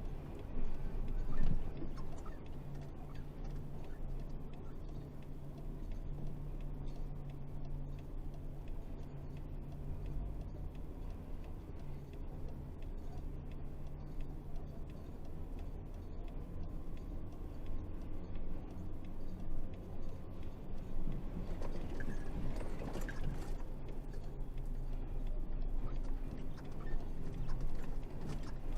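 Isuzu 8x4 truck's diesel engine running at a steady drone, with light clicking and rattling over it and a brief louder swell a little over three-quarters of the way through.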